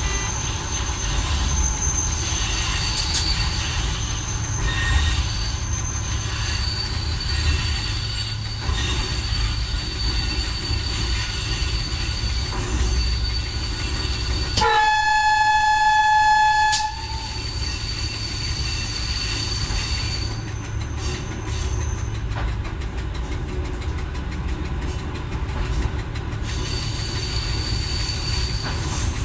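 Swedish Y1 diesel railcar running slowly on jointed single track, heard from the driver's cab: a steady low rumble of engine and wheels, with a thin high wheel squeal coming and going on the curves. About halfway through, the railcar's horn sounds one steady note for about two seconds, the loudest sound here.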